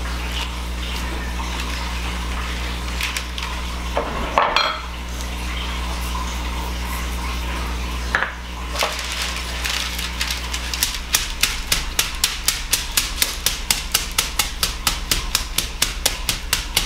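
Metal meat-tenderizer mallet pounding cube steak through wax paper on a wooden cutting board, flattening the tough meat to tenderize it. The strikes come quickly and evenly, about five a second, starting a little after halfway, over a steady low hum.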